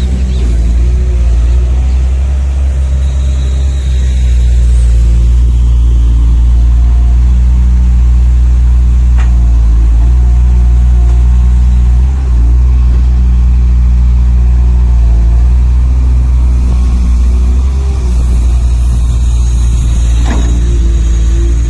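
Steady engine drone from radio-controlled scale construction models (dump trucks and an excavator), with small shifts in pitch and a couple of light clicks.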